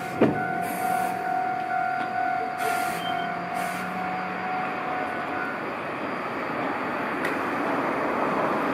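Iyotetsu 3000-series electric train standing at the platform, running with a steady hum. A sharp knock comes right at the start, and a steady high tone stops a little past halfway.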